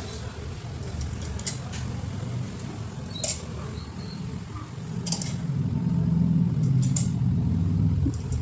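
A few sharp metallic clicks, about two seconds apart, as small screws and nuts are picked up and fitted to a fan's wire guard and motor mount. Underneath is a steady low rumble that grows louder about five seconds in.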